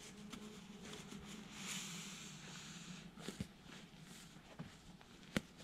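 Nylon sleeping bag rustling softly as it is stuffed and pressed down into its stuff sack. There is a longer rustle in the first half and a couple of light knocks near the end.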